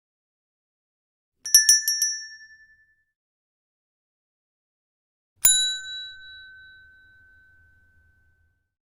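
YouTube subscribe-button sound effect: a quick run of sharp clicks with a short bright chime about a second and a half in, then a single bell ding about four seconds later that rings out and fades over about three seconds.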